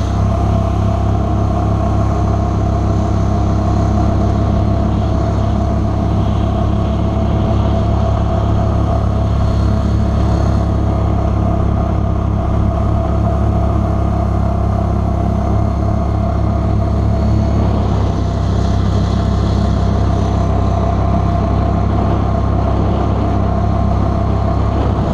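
Mud Buddy Sport V 44 hp surface-drive mud motor running steadily at speed, driving a jon boat across open water.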